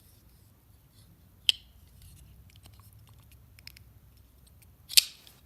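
Folding knife blade being worked after its pivot is tightened to centre it: two sharp metal clicks, about three and a half seconds apart, the second the louder, with faint handling ticks between.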